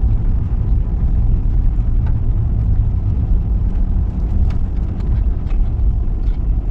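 Steady low road and engine rumble heard inside a moving vehicle's cabin, with a few faint ticks.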